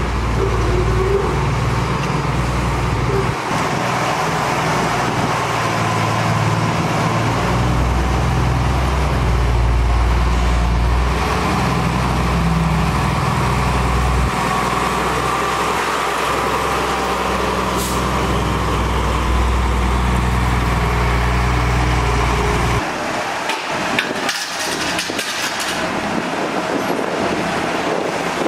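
Heavy diesel road-construction machinery running, a deep steady engine rumble that drops away abruptly about 23 seconds in, leaving fainter noise and a few clicks.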